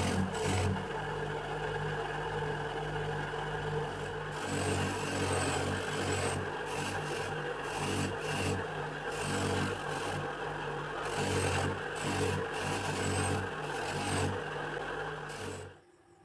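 Rusty steel wrench being scraped by hand with an abrasive tool in repeated back-and-forth strokes. The scraping stops abruptly near the end.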